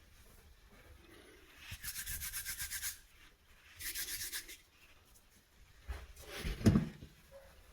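Hands rolling and working plumber's putty, two bouts of quick back-and-forth rubbing strokes, then a louder knock of handling near the end.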